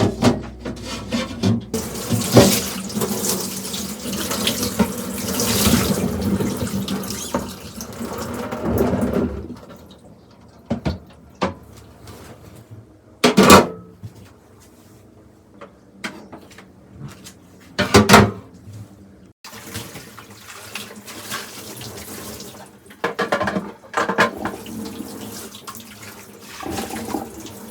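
Tap water running into a sink while items are rinsed and washed, with handling noise and two sharp clatters of things knocking in the sink partway through. The water runs strongly in the first third, then comes and goes.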